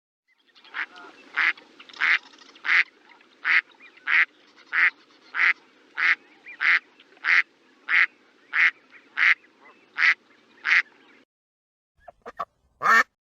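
Duck quacking over and over at an even pace, about sixteen quacks at roughly one and a half a second, stopping about 11 seconds in. Near the end come a few clicks and one loud short sound.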